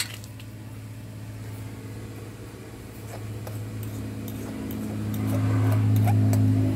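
Steady low mechanical hum, like a motor running, that grows louder over the last few seconds. A few light metallic taps from a spoon stirring in a small pan sound over it.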